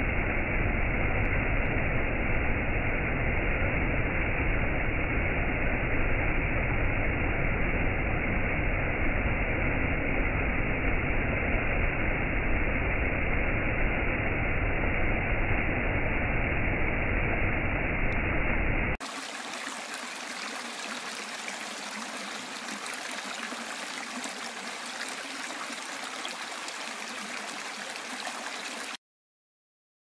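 Stream water running over a rocky cascade, a steady rushing noise. About two-thirds of the way in it switches abruptly to a quieter, thinner hiss, which cuts off suddenly near the end.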